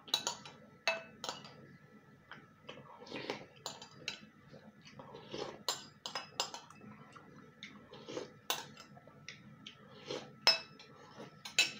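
Metal spoon clinking and scraping against a ceramic soup bowl while eating dumplings in broth: irregular sharp clinks, often a second or so apart, with softer sipping and chewing sounds between them.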